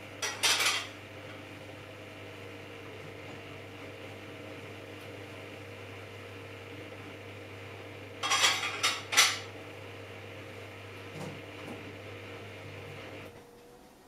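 Samsung Eco Bubble front-loading washing machine running, with a steady motor hum and a thin whine. Brief bursts of metallic clattering come just after the start and again about eight seconds in, with a couple of fainter knocks later. The hum cuts off near the end.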